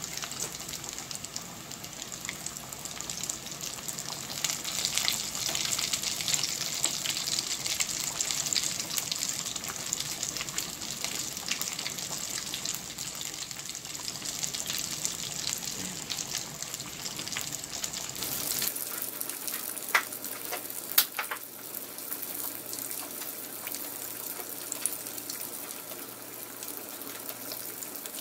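Battered jackfruit patties deep-frying in hot oil in a pot: a steady dense crackle and sizzle of bubbling oil. Two sharp clicks about a second apart come shortly after the two-thirds point.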